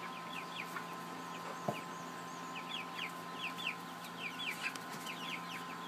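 Young chickens peeping: many short, high chirps, each falling in pitch, coming in quick clusters. A single knock sounds about a second and a half in.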